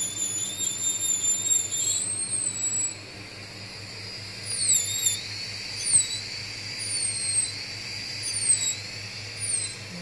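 Corded handheld electric engraving pen whining at high pitch as it cuts into silver. The pitch dips and recovers as the tip digs in, with a low steady hum under it and a few louder scraping moments in the second half.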